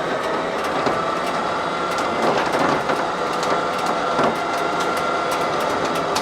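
Recovery truck's winch running, a steady whine with rapid clicking, as it drags a car up onto the truck bed.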